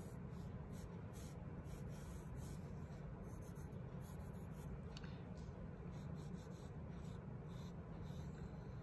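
Pencil sketching on a sheet of paper: faint, irregular strokes scratching the paper one after another.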